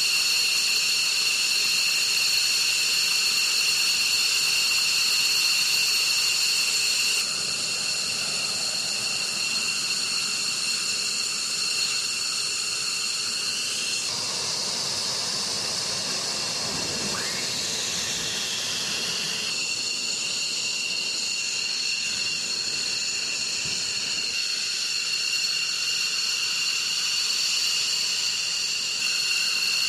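F-15E Strike Eagle's twin turbofan engines running at taxi power: a steady high-pitched whine over a rushing hiss. About halfway through, the whine briefly changes, with a tone sliding up and another sliding down, before the steady whine returns.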